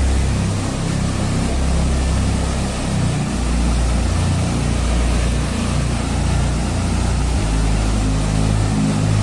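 Steady low rumble under a rushing hiss, the pitch of the rumble shifting about seven seconds in.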